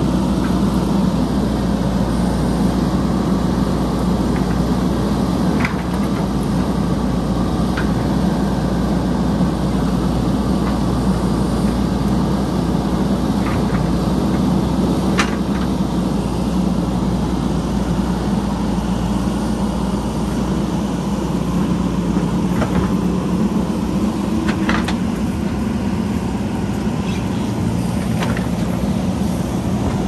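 JCB backhoe loader's diesel engine running steadily at working load while it digs, with a few short sharp knocks scattered through.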